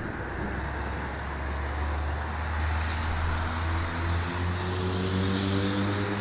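Road traffic with a steady low rumble. In the second half a vehicle's engine grows louder and rises a little in pitch, then its tone drops near the end as it passes.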